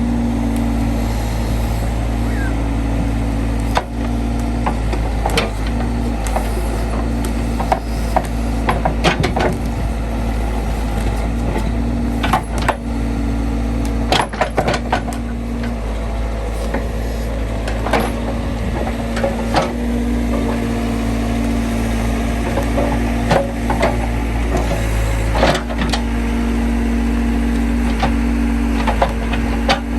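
Case 580C backhoe's engine running steadily, with scattered knocks and clanks from the machine at work.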